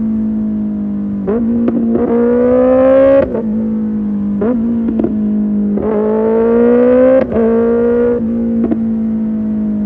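Kawasaki Ninja ZX-6R inline-four running through an Arrow Pro Race exhaust under way. It pulls twice with a steadily rising note, and each pull ends in a quick upshift, with short throttle blips in between.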